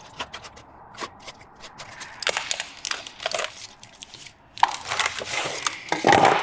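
Foil-backed butyl sound-deadening mat being trimmed and handled. Small clicks come first, then two spells of crinkling and crackling from the foil sheet, the second louder.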